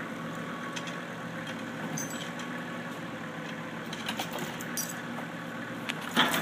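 Tractor engine running steadily, with scattered light metallic clinks and rattles. Near the end a loud, sudden clatter breaks in.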